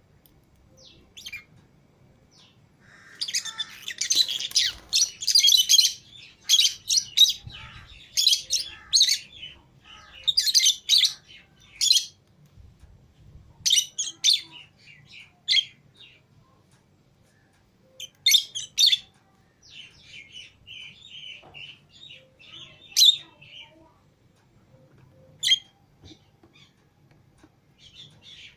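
Lovebirds (Fischer's and lutino) chirping and calling: a dense flurry of shrill, overlapping chirps for the first several seconds, then scattered chirps with a few single sharp calls.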